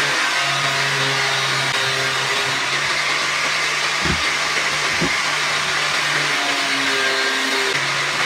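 Electric angle grinder with a sanding disc running steadily, sanding the edges of a split Gombong bamboo piece. Two short knocks come about halfway through.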